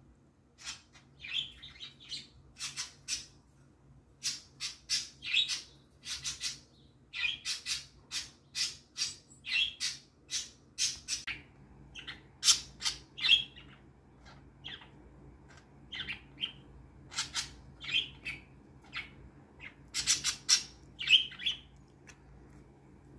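Pet budgerigars (parakeets) chirping in a rapid string of short, sharp, high calls, several a second at times, stopping shortly before the end.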